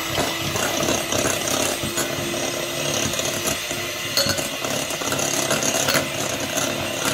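Electric hand mixer running steadily, its beaters whisking eggs in a glass bowl, with a few sharp clicks about four and six seconds in.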